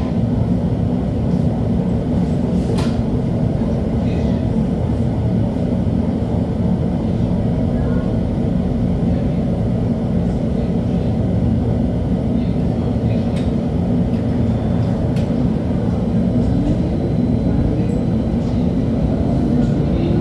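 LHB TW2000 light-rail car running, a steady rumble of wheels and running gear. From about 16 seconds in, a rising whine from the traction drive as the car speeds up.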